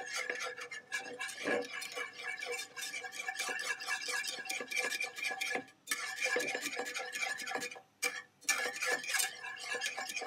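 Wire whisk rapidly scraping and clicking against a nonstick pan as butter is whisked into a reduction to build the emulsion for a butter sauce. There are two brief pauses, about six and eight seconds in.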